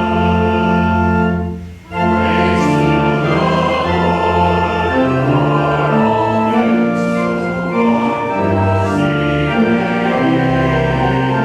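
Congregation singing a hymn with organ accompaniment, in held chords over a steady bass, with a brief break between lines about two seconds in.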